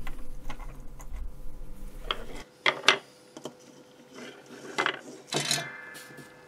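Small clicks and taps of a new USB plug connector and a little circuit board being handled and fitted together, with a few sharper metallic ticks in the second half, the last one ringing briefly.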